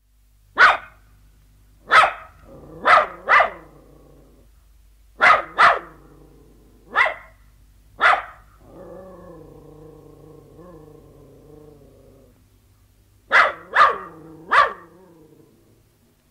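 A terrier barking: short sharp barks, some single and some in quick pairs, then a low growl of about three seconds, then a quick run of three more barks trailing into a growl.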